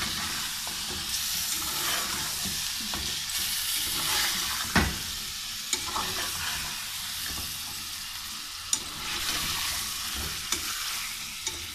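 Beef pieces and nihari spice mix sizzling in hot oil in a metal pot while a spoon stirs them, the masala being fried with the meat. Scattered clicks of the spoon against the pot, the loudest about five seconds in.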